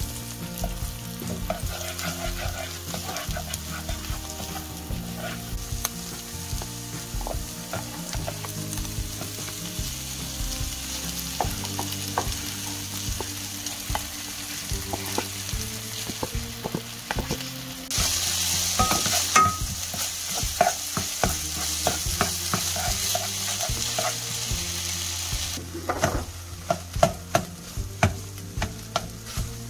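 Scrambled egg, chopped vegetables and Chapagetti noodles stir-frying in a non-stick pan: a steady sizzle with a spatula stirring and scraping. The sizzle gets louder about eighteen seconds in, drops sharply some eight seconds later, and then comes a run of sharp clicks of the spatula against the pan.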